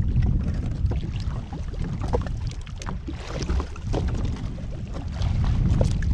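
Wind buffeting the microphone, with water slapping and splashing against the jetski's hull where a hooked fish is held at the surface.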